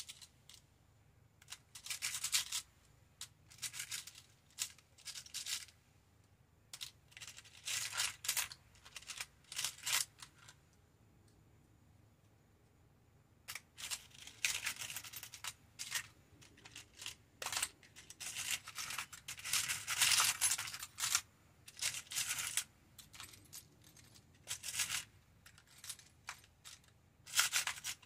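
Small metal charms (tiny keys and gears) clinking and rattling in a plastic compartment organizer as they are rummaged through by hand, in short irregular bursts with a pause of a few seconds in the middle.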